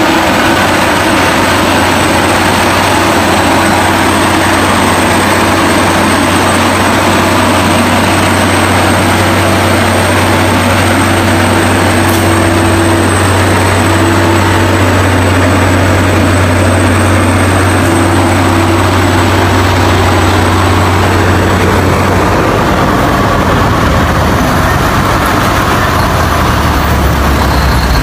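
Heavy engine of a log-laden Ford Canadian Military Pattern timber truck pulling under load: a loud, steady, deep drone that shifts lower near the end.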